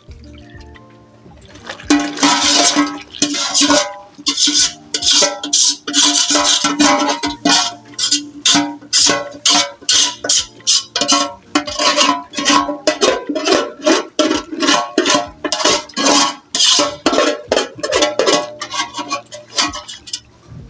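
Fast, rhythmic scraping strokes of a spoon stirring round a bowl, several a second, starting about a second and a half in and stopping near the end. The spoon is stirring the melted wax, cetyl alcohol and paraffin oil into hot water to make conditioner. Background music plays under it.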